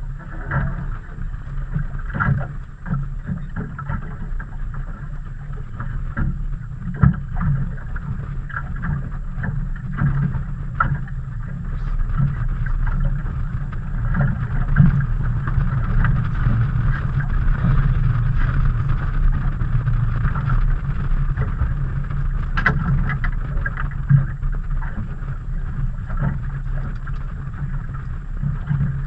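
Steady low rumble of wind and water around a small fishing boat on open, choppy water, with a few short knocks scattered through it.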